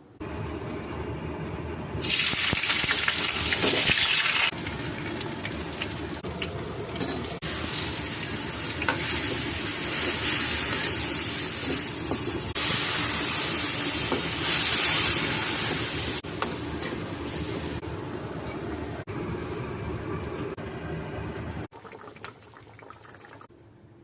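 Cooking sounds: a steady, loud hissing noise from food or liquid in the kitchen, in several short segments that change abruptly from one to the next.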